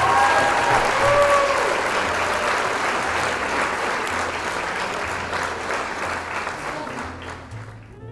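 Audience applause, steady at first and gradually dying away over the last few seconds.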